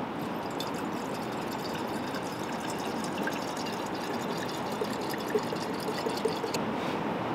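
Lantern oil pouring in a steady stream from a bottle into a glass jar, stopping about six and a half seconds in.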